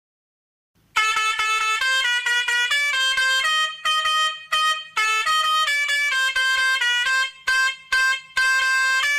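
Silence for about a second, then an Indian truck's musical horn plays a tune of quick stepped notes, each a steady tone, with a few brief breaks between phrases.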